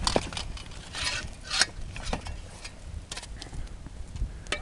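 A couch-and-wood bonfire crackling and popping in irregular sharp snaps, with a short hiss about a second in, over low wind rumble on the microphone.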